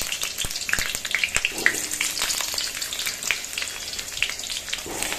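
Hot oil in a kadhai sizzling and crackling as small potatoes are dropped in one by one, with a few soft knocks in the first second and a half as pieces land in the pan.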